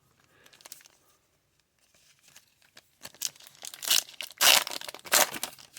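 Foil trading-card pack wrapper being torn open and crinkled by hand, with faint rustling at first. From about three seconds in there are loud crackling tears.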